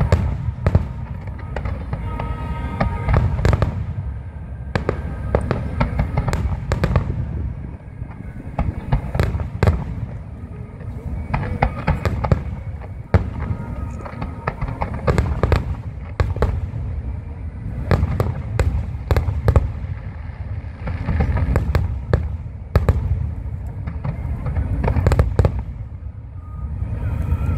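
Aerial fireworks bursting in quick succession: sharp cracks and deep low booms that keep coming throughout.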